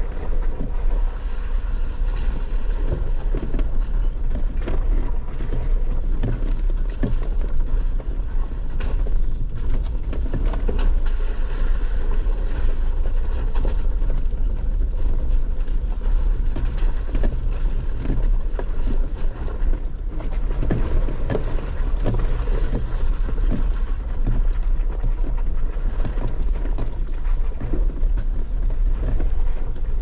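A 4x4 driving slowly over a rocky, bumpy dirt trail: a steady low rumble of engine and tyres, with scattered knocks and rattles as it rolls over the bumps.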